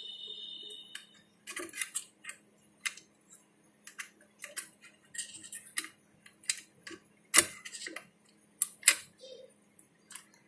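Multimeter probe tips clicking and tapping against components on a motherboard while a resistor's value is measured: irregular sharp ticks, two louder knocks in the second half. A steady high beep sounds for about a second and a half at the start.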